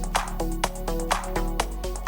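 Background electronic music with a steady beat, about two beats a second, and short melodic notes between the hits.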